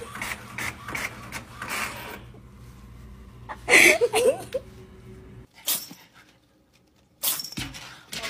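Office photocopier running, a steady low hum with repeated clicks as it feeds and prints. About four seconds in comes a brief loud sound with a wavering pitch.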